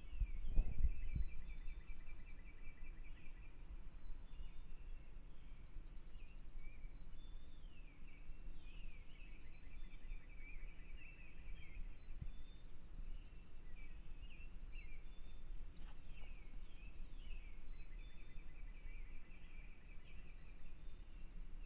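Songbirds singing at dawn: short, rapid trills repeat every couple of seconds, one voice higher-pitched than the other, over a steady background hiss. A low thump about half a second in is the loudest sound.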